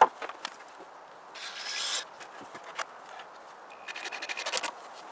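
Cordless drill-driver driving screws into the pressure-treated wood of a ramp stringer. A sharp knock comes at the start, then a short run of the tool about a second and a half in, and a second run near the end with a rapid ticking.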